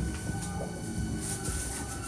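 Hankyu 1300 series electric train running, heard from on board: a low rumble of wheels on rail with a steady high whine from the Toyo IGBT inverter drive, and a few clicks from the wheels over the track.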